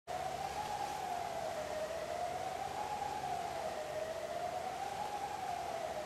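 A siren wavering slowly up and down, peaking about every two seconds, over the steady rush of the high, fast-flowing river.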